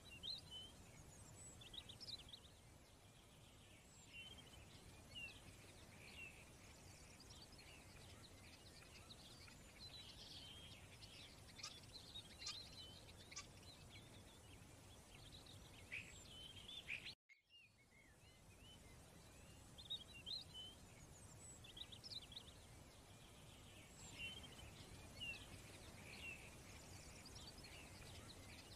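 Faint birds chirping: many short, scattered chirps over a low steady hiss, cut off completely for a moment about two-thirds of the way through.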